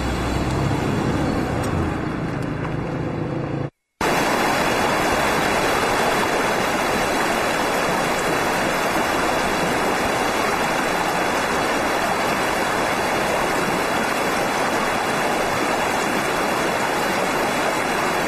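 A car's engine rumbling low as it drives past, cut off a few seconds in by a moment of silence. Then a shallow, rocky mountain river rushes steadily over stones, a loud, even rushing.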